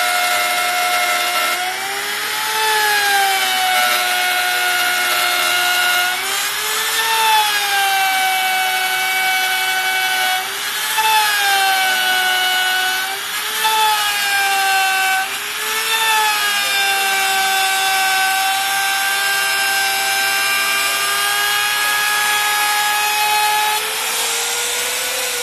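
Makita trim router running while its bit cuts along the edge of a particleboard panel: a steady high whine whose pitch rises and settles back several times as the load on the bit changes, and climbs near the end as the cut is finished.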